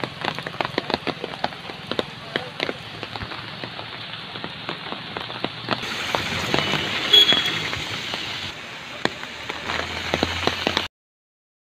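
Heavy rain falling, a steady hiss dotted with many sharp close drop impacts, with a brief high tone about seven seconds in. The sound cuts off suddenly near the end.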